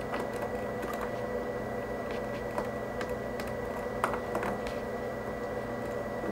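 Scattered light clicks and taps of RCA cable plugs being handled and pushed into a flat-screen TV's side jacks, over a steady hum; the sharpest click comes about four seconds in.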